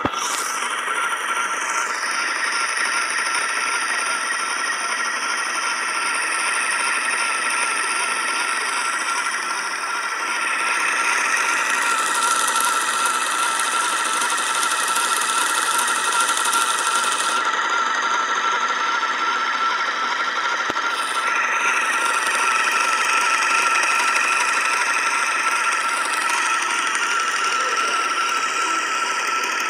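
Small electric spinning wheel running, its motor and whirling flyer and bobbin making a steady whirr with a constant high whine, as sheep's wool is spun into yarn. It gets slightly louder about ten seconds in.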